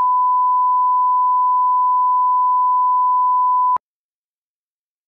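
Steady 1 kHz reference test tone of the kind laid under colour bars, a single unwavering beep that cuts off abruptly almost four seconds in.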